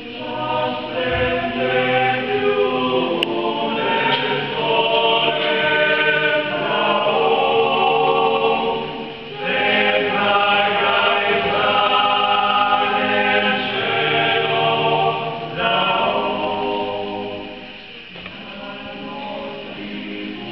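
Male vocal ensemble singing several-part harmony in long, held chords. The phrases break briefly about nine and fifteen seconds in, and the singing grows softer near the end.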